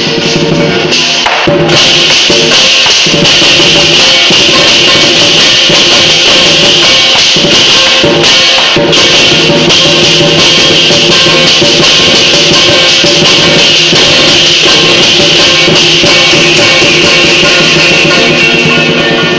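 Loud, continuous lion dance music: a drum beating with cymbals clashing.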